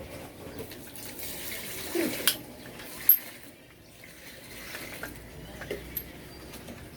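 A few sharp clinks of small hard objects knocking together, two of them loud about two and three seconds in and two lighter ones near the end, over a faint hiss.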